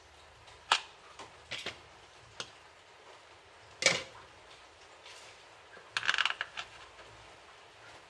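Washing machine gearbox and pulley parts being handled and set down by hand. Scattered clinks and knocks of hard parts, the loudest about four seconds in, with a short clattering rattle around six seconds in.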